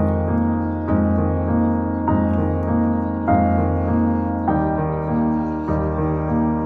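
Soft piano background music, with chords changing at a slow, even pace over a steady bass.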